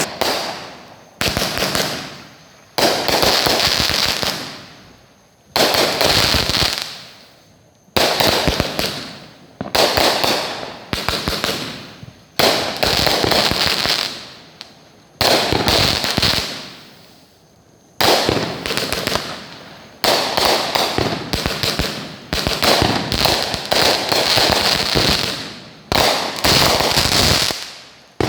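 Consumer aerial fireworks going off in quick succession, a new burst every one to two seconds, each a sharp bang followed by a fading crackle.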